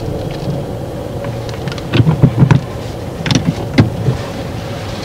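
Car engine idling, heard from inside the cabin, with two short clusters of clicks and knocks about two and three and a half seconds in as the handbrake and gear lever are worked after parking.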